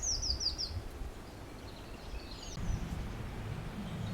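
Woodland birdsong: a songbird sings a quick run of about five high, downward-sliding notes in the first second, with fainter calls a little before three seconds in, over a low steady rumble.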